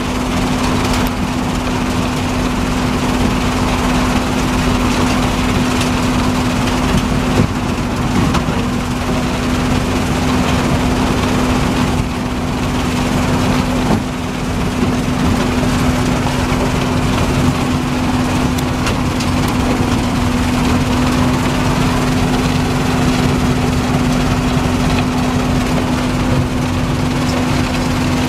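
RUBBLE MASTER RM 100GO! mobile impact crusher running under load as it crushes asphalt, with its screen and an excavator feeding it working alongside. The engine and crushing noise make a dense, continuous din over a steady hum.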